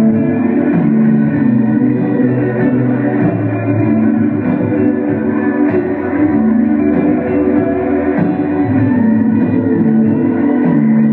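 A band playing live in a concert hall, heard from the audience: a slow melody over held low notes that change every second or two.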